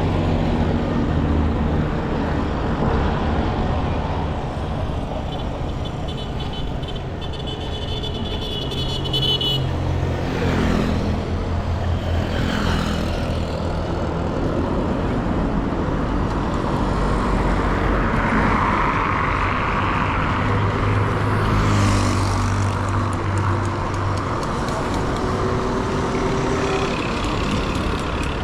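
Street traffic: vehicle engines running and vehicles driving past. About eighteen seconds in, one vehicle passes close and louder.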